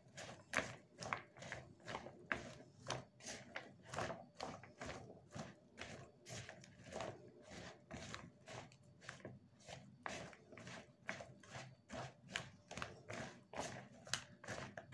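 Raw potato sticks coated in oil and spice being tossed and stirred with a spatula in a plastic bowl: a quiet, irregular run of soft clicks and rustles, a few each second.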